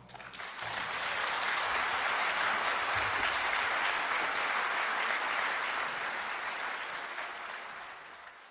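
Audience applauding in a concert hall, building up within the first second, holding steady, then fading out near the end.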